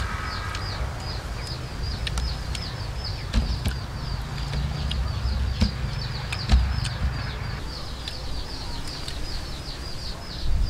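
A small bird chirping over and over, a quick steady series of short, high, falling chirps, over a low rumble with a few dull knocks.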